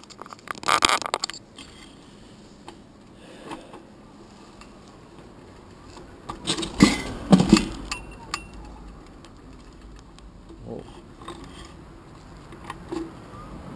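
Handling noise of a GoPro camera and its mount being moved and clamped onto bicycle handlebars: scattered clicks and rattles, with a spell of louder knocks about half a second in and another around seven seconds in.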